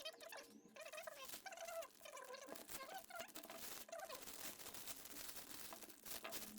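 Faint rustling, crinkling and small clicks of packaging being handled as the box of soldering-tip cleaners is opened. Faint wavering pitched calls can be heard during the first few seconds.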